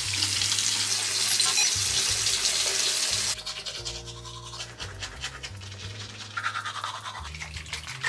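Tap water running into a sink for about three seconds, then quick, rapid scrubbing strokes at the sink, with background music throughout.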